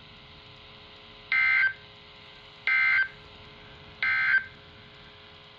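Emergency Alert System end-of-message (EOM) digital bursts: three short, identical bursts of warbling two-tone data, about a second apart, the coded signal that closes an EAS alert.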